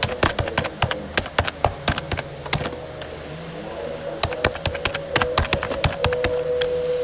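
Rapid, irregular sharp clicks in two flurries, the first at the start and the second a few seconds later, over a steady low hum with a faint steady tone.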